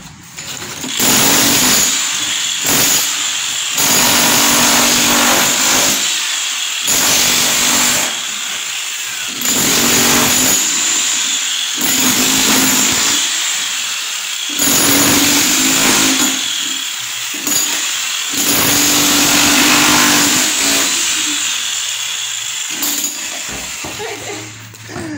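Handheld power tool run in about ten loud bursts of one to three seconds each, with short pauses between, working masonry or stone in a building renovation.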